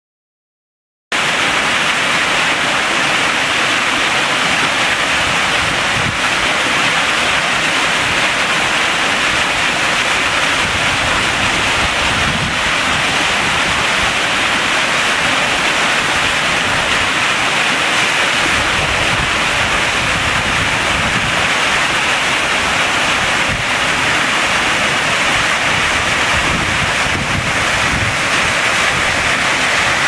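Small mountain waterfall cascading down a rocky chute: a steady, loud rush of falling water that starts abruptly about a second in.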